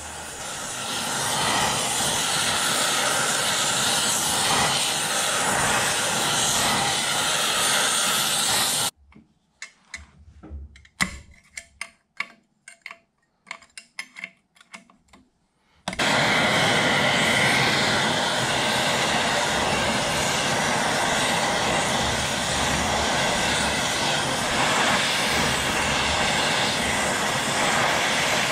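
Gas torch flame hissing steadily as it heats seized shafts in a cast-iron lathe quick-change gearbox. About nine seconds in the flame goes quiet, and a hammer strikes a brass drift in the gearbox a dozen or so times in sharp metallic taps. The torch hiss resumes about seven seconds later.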